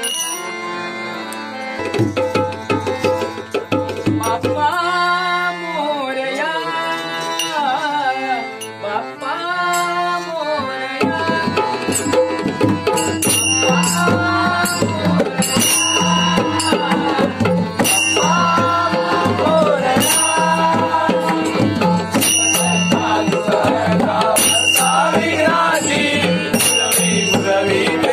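Bhajan music: a sung devotional melody over a harmonium. About eleven seconds in, a two-headed barrel drum (pakhawaj) joins in a steady rhythm, with brass hand cymbals clashing on the beat.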